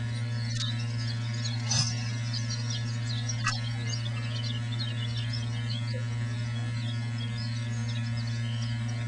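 Steady low electrical hum, with faint high chirps scattered through it and a few short clicks.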